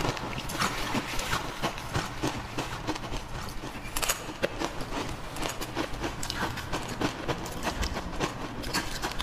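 Close-miked crunching of crushed ice being chewed: a dense, irregular run of sharp cracks and crackles.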